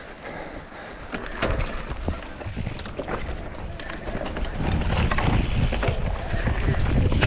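Trail-riding noise from a Specialized Turbo Levo e-mountain bike: tyres running over dirt and loose rock, with frequent sharp rattles and knocks from the bike. A low wind rumble on the microphone grows louder about halfway through as the ride picks up speed.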